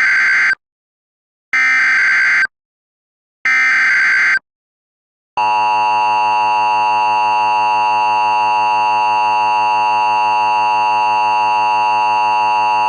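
Emergency Alert System SAME header: three one-second bursts of buzzy digital data tones, each about a second apart, encoding an Amber Alert. From about five seconds in, the steady two-tone EAS attention signal sounds without change.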